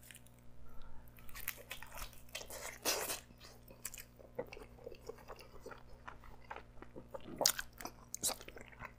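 Biting into and chewing a slice of pepperoni pizza close to the microphone, with irregular crunches from its crisp, charred crust. The loudest crunches come about three seconds in and twice near the end.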